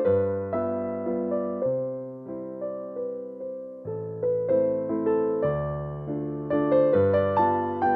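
Background piano music: a gentle melody of struck notes, each fading away, over a lower line of chords.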